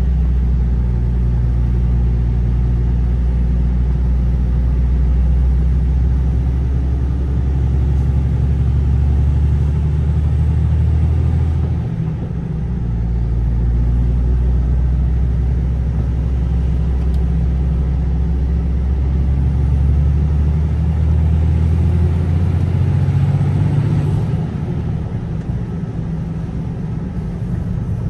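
A car being driven on a narrow country road: a steady engine hum with road noise, dipping briefly about twelve seconds in and easing slightly near the end.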